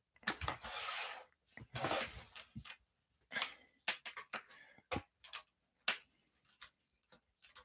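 Hands handling an earbud box's packaging and cable: a couple of short rustles in the first two seconds, then scattered light clicks and taps as the plastic and cardboard insert tray is lifted and handled.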